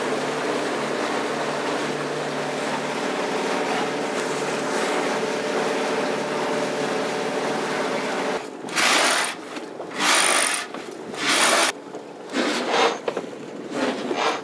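The yacht's inboard engine runs with a steady hum while under way. From about eight seconds in come five or six short, loud rasping bursts, the sound of a winch being cranked as the sail is hoisted.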